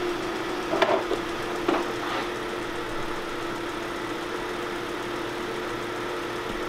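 Car engine idling with a steady hum, with a few sharp knocks about a second in.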